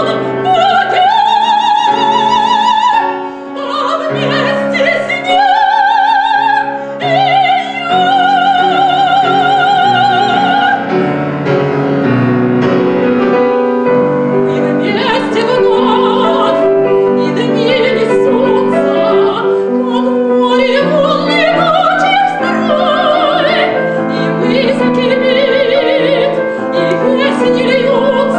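Classical operatic singing with wide vibrato, accompanied by piano. The voice holds long notes in the first half, the piano comes to the fore in the middle, and the voice returns near the end.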